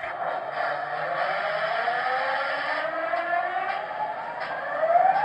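Protosound 3.0 sound system in a model EMD SD40-2 diesel locomotive playing its engine sound over its small onboard speaker. It starts abruptly, and several whines rise slowly in pitch over the engine noise.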